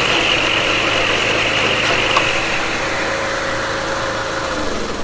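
The brush mower's 19 horsepower Kohler engine runs with the cutting blade engaged, giving a high whir over the steady engine note. The whir fades away over the last couple of seconds.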